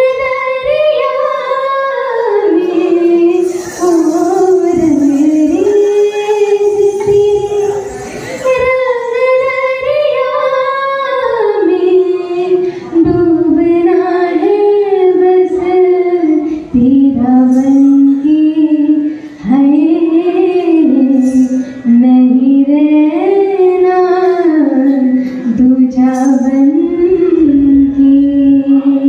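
Live singing: a woman's voice carries the melody into a microphone, holding long notes, over a small acoustic band of guitar and hand drum.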